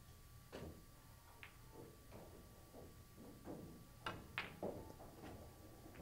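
A quiet pool hall with a few faint clicks. About four seconds in, a cue tip strikes the cue ball and a sharp click of ball on ball follows a moment later.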